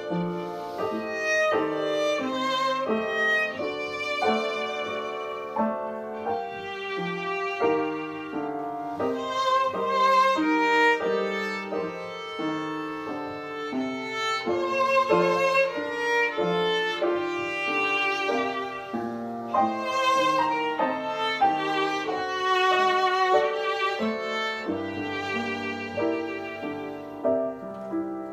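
Violin playing a melody of short bowed notes with piano accompaniment.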